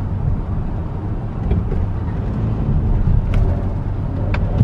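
Steady low road and engine rumble of a car heard from inside the cabin while driving, with a couple of faint short ticks near the end.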